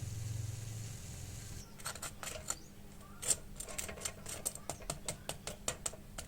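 A steady low mechanical hum stops about a second and a half in. A run of irregular sharp clicks and crackles follows.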